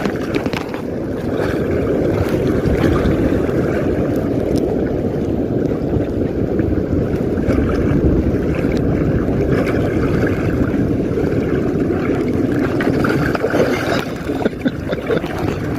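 Steady, rumbling wind noise on the microphone, with sea water moving around the inflatable inner-tube float.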